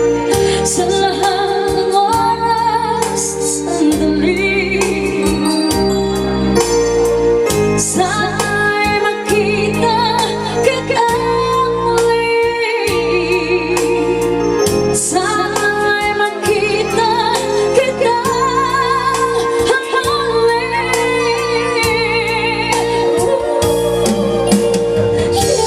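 Amplified live music through a PA system: a singer holding wavering notes with vibrato over an electronic organ-style keyboard and a stepping bass line.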